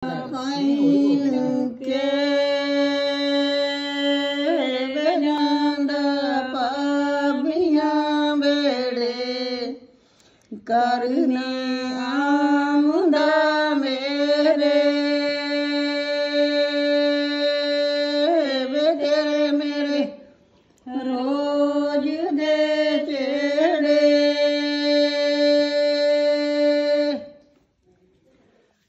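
A woman's voice singing a Punjabi wedding folk song without accompaniment, in long held notes with turns at the phrase ends. Three long phrases, with short breaths about ten and twenty seconds in; the singing stops shortly before the end.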